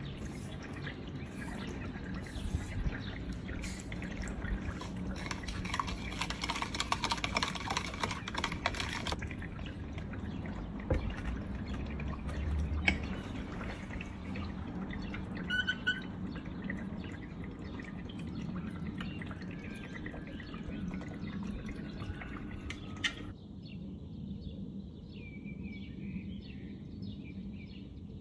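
Kitchen handling sounds: sugar spooned into milk in a plastic jug and stirred, with light clinks and sloshing. Later a knife is drawn through a glass tray of set milk pudding (haytaliyeh).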